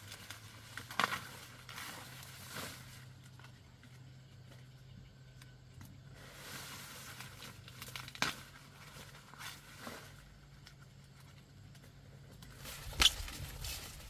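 Rustling and crinkling of handled dry material, with sharp snaps about a second in, around eight seconds in and a louder one near the end, over a low steady hum.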